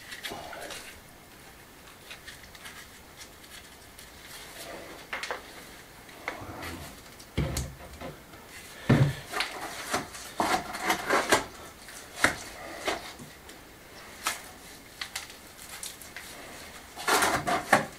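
Mortar being mixed by hand with a trowel in a plastic bucket: irregular scraping and clinking of the trowel against the bucket, with a couple of heavier thuds about halfway through.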